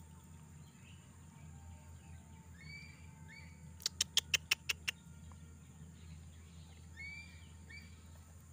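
Faint birds chirping in short calls, over a low steady background rumble. Around the middle comes a quick, even run of about seven sharp clicks.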